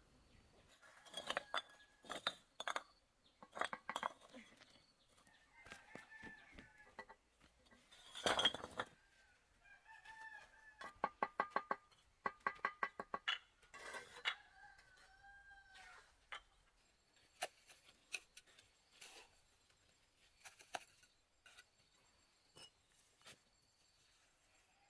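Short animal calls mixed with sharp knocks and clinks, including a quick run of about a dozen short pulses a little past the middle and one louder knock about a third of the way in.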